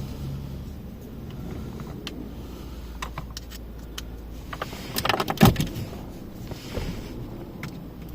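Scattered plastic clicks and rattles as a USB-C cable is plugged in and the wireless car charger mount is handled, loudest about five seconds in, over a low steady rumble.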